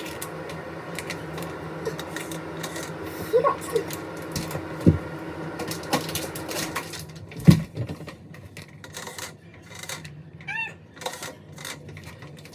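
Household handling sounds: light clicks and knocks of objects, with two louder thumps, over a steady hum that stops about seven seconds in. A short pitched call sounds near the end.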